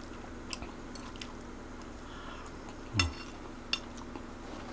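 Close-miked eating sounds: a few faint crisp clicks and crunches of kerupuk crackers being chewed, with one louder low thump about three seconds in.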